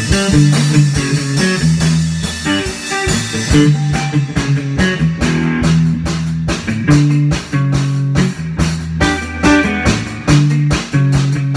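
A guitar-and-drums duo playing live: an electric guitar plays a low, bluesy riff over a drum kit. The drum and cymbal hits grow busier and more distinct about three and a half seconds in.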